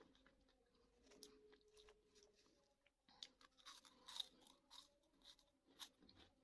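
Someone chewing crunchy Bozo snack balls: faint, irregular crunches, several sharper ones in the second half.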